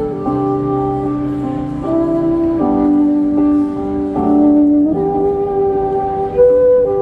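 Instrumental music: a slow melody of long held notes, each changing pitch every second or so.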